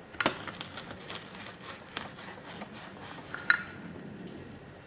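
Small metal soldering tools being handled on a workbench: a sharp metallic clink shortly after the start and another, ringing briefly, about three and a half seconds in, with lighter clicks and taps between.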